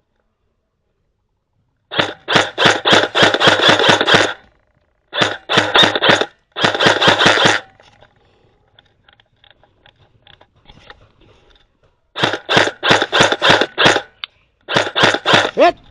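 Airsoft guns firing in rapid full-auto bursts, five bursts of one to two and a half seconds each, with faint scattered shots between them in the middle; silent for the first two seconds.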